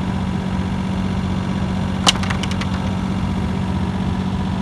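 A steady low mechanical hum, like an engine running at idle, with a sharp click about two seconds in followed by a quick run of fainter clicks.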